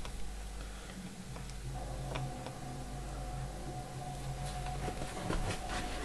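Faint clicks and ticks from multimeter test probes and wires being handled on a washing machine's mains filter, with a few sharper clicks near the end, over a low steady hum.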